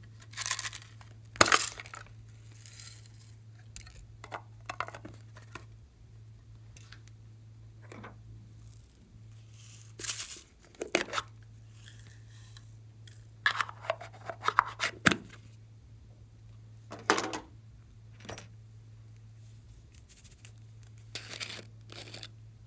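Handling of small plastic containers and slime toppings: sprinkles poured into a glass dish, a container lid twisted off, and short rustles and clatters in several separate clusters. A steady low hum runs underneath.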